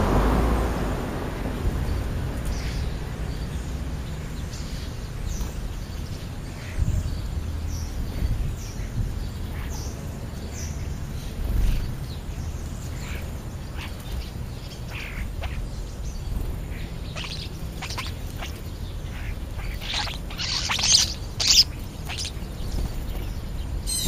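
European starlings and house sparrows chirping and calling: scattered short calls that come thicker and louder about twenty seconds in, over a low steady rumble.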